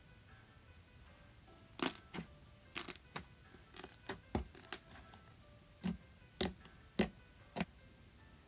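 Slime being pressed and poked, giving about a dozen sharp, irregular clicks and pops over a few seconds, with quiet background music.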